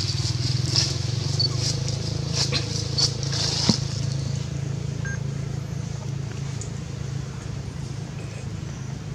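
An engine running steadily with a low hum, with a few sharp crackles and snaps in the first few seconds.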